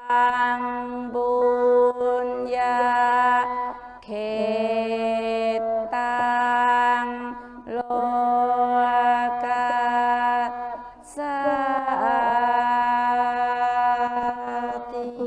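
A Buddhist mantra sung in long, held notes, in four phrases of a few seconds each with short breaks between them.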